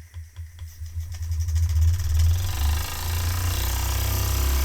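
Empire B-30 toy steam engine speeding up to full speed. Its even beat of about five a second quickens and grows louder until it blurs into a steady hum about three and a half seconds in.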